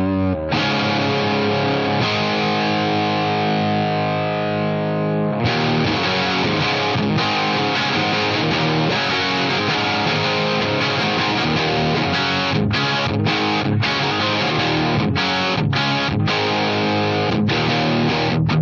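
Gibson Flying V played straight into a Scarlett Scout 6L6 tube amp head and a Hiwatt 4x12 cab with Vintage 30 speakers, giving an overdriven electric guitar tone. A chord is held and rings for about five seconds, then a busier riffing passage follows, broken by a few short stops.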